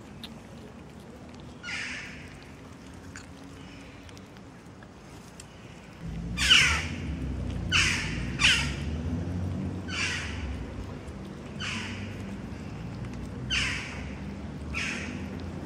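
A crow cawing, about seven short harsh calls that drop in pitch, one every second or two, starting about six seconds in, over a low rumble that starts at the same moment.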